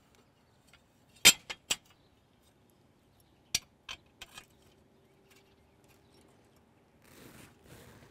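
Steel chainroll plates clinking against the stalk roll as they are fitted by hand: three sharp metallic clicks about a second in, four more a couple of seconds later, then two soft scrapes near the end.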